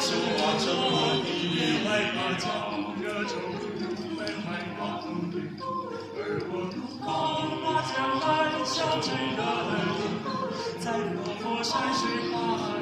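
A seven-voice mixed a cappella ensemble, men's and women's voices, singing in close harmony with no instruments.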